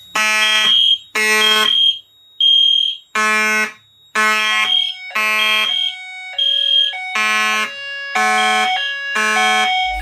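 Fire alarm horns sounding in repeated blasts just under a second long: a buzzy Simplex mechanical horn together with the higher, purer tone of an EST Genesis horn.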